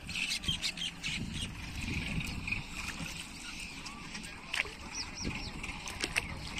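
Outdoor ambience by the water: scattered clicks and rustles over a low steady background, with a few short bird chirps about five seconds in.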